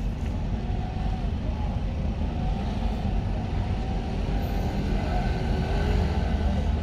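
Steady low engine rumble on the vehicle deck of a roll-on/roll-off passenger ferry while vehicles board.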